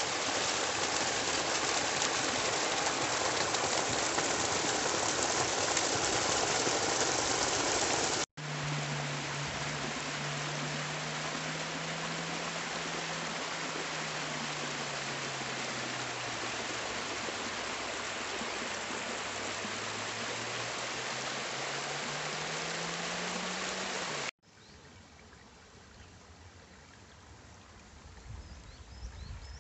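Water rushing steadily down a narrow rock channel in a small cascade, the sound breaking off abruptly about 8 and 24 seconds in. Through the middle stretch a low hum slowly sinks and rises again under the water. After the second break the water is much quieter.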